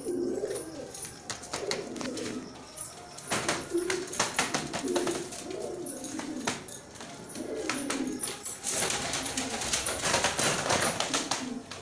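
White Baghdadi pigeons cooing, a low coo repeated over and over, with the cock bowing and tail-dragging in courtship display. Sharp clicks run through it, and a burst of rustling scuffle comes in from about nine seconds in.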